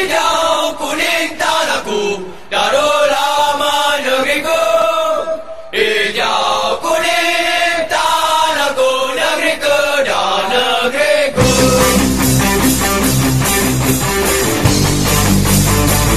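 Music: a sung, chant-like vocal melody, then about eleven seconds in a loud rock arrangement with heavy bass and a steady beat comes in.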